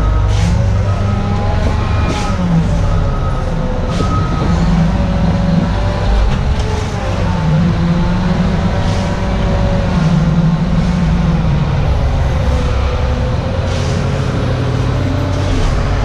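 Heavy diesel earthmoving machinery working: the engine runs loud and steady, its pitch rising and falling under load, with a few sharp knocks along the way.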